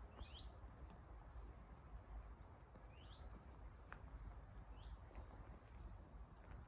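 Faint bird calls: a few short chirps that slide quickly downward, spaced a second or more apart, with occasional sharp ticks over a low rumble.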